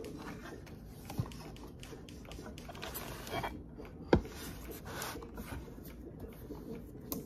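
Handling of a plastic lid on a covered bowl of broth on a meal tray: scattered small plastic clicks and scrapes as fingers work at the lid, with a sharp knock about four seconds in and a smaller one just after the start.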